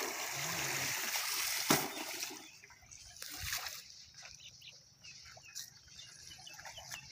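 Shallow water splashing and sloshing as a man wades at the bank and hauls a fishing net and cloth sack through the water. The splashing is heaviest in the first two and a half seconds, with one sharp loud splash near the middle of that, then dies down to faint trickling.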